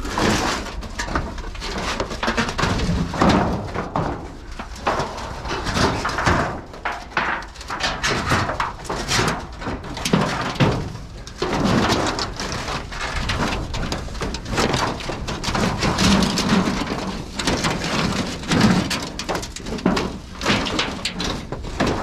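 Continuous rustling and crunching of dry brush and debris, with irregular scrapes and knocks, as ground cover is pulled and moved by hand.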